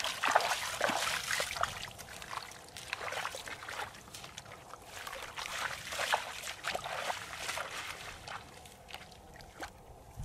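Footsteps splashing through shallow water and mud, an irregular run of steps that grows fainter toward the end.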